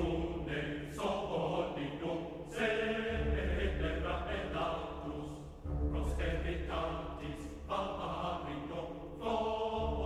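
Background music with massed singing voices over deep held bass notes that drop out and come back every few seconds.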